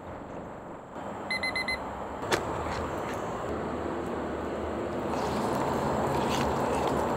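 Digital kitchen timer giving four quick beeps, followed by a single sharp click. A steady rushing noise runs underneath and grows louder about five seconds in.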